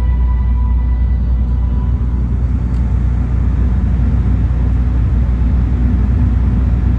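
Steady low rumble heard on the open deck of a ferry under way.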